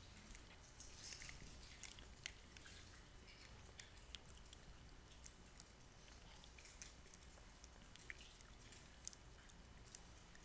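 Near-silent room tone with a steady low hum and scattered faint clicks and crackles: a congregation quietly breaking and eating communion bread.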